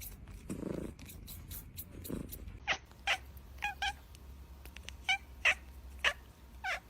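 A domestic cat making a run of short, high calls, about one every half second, through the second half.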